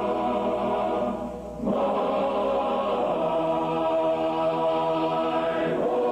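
Choral music: voices holding sustained chords, which fade briefly about a second and a half in and then swell back with a new chord.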